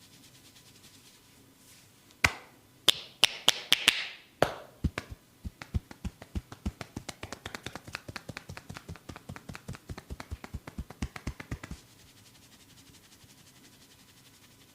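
A masseur's hands striking the body in massage percussion: a few loud, sharp slaps or snaps, then a fast, even patter of light taps, several a second, that stops suddenly.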